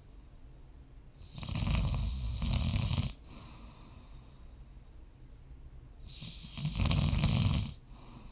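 A sleeping person snoring: two snores about five seconds apart, each lasting close to two seconds.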